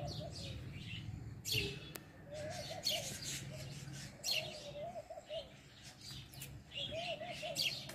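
Many small birds chirping and twittering. Three times a lower, wavering call rolls up and down, over a steady low hum.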